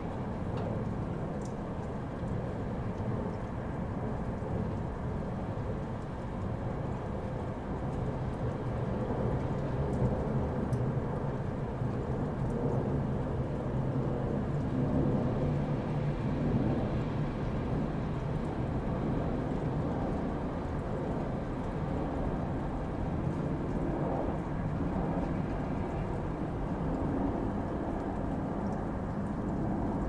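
Continuous white-noise track: a steady, even rushing noise, heavy in the low end with little high hiss, swelling slightly louder in the middle.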